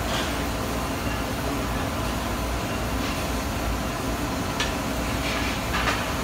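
Steady noise of a welding shop, with one sharp tick about four and a half seconds in.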